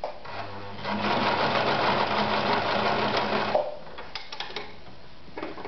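Victoria Super Deluxe 118F sewing machine sewing a zigzag stitch: the motor hums and the needle mechanism runs fast for about three seconds, starting about a second in and stopping suddenly. A few light clicks follow near the end.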